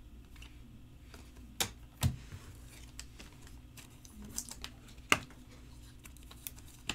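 Trading cards and foil card packs handled on a tabletop, giving a few sharp clicks and light taps over a quiet, low, steady hum.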